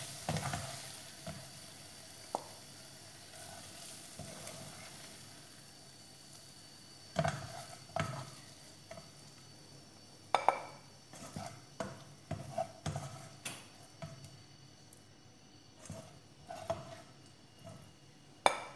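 A spatula scraping and knocking against a frying pan as fried prawns in sauce are lifted out onto a plate. A faint sizzle dies away over the first few seconds, then comes a run of separate sharp knocks.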